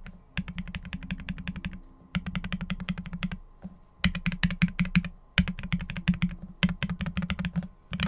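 Keys of a three-key brass-cased macropad with Holy Panda tactile mechanical switches and DSA-profile keycaps being pressed rapidly, clacking in quick runs of about ten presses a second with short pauses between runs.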